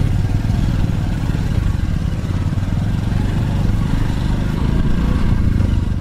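Motorcycle engine running steadily, heard on board from just behind the rider, with a continuous low rumble and noise while riding over a rough dirt track.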